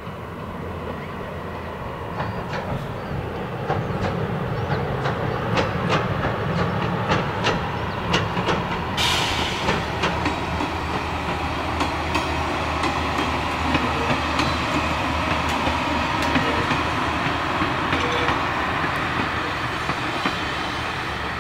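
A Finnish Dm7 'Lättähattu' diesel railbus passing by, its engine humming and its wheels clickety-clacking over rail joints as it draws near. About nine seconds in a louder hissing rush sets in suddenly and carries on as it goes by.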